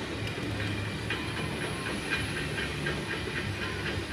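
Amusement-ride car running along its track, a steady rumble with light clicking from the wheels.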